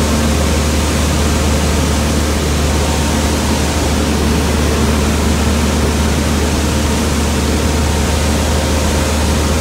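Cessna 150 cabin noise in cruise flight: the Continental O-200 engine and propeller running steadily under a rush of airflow. It is a loud, even noise with a strong low hum throughout.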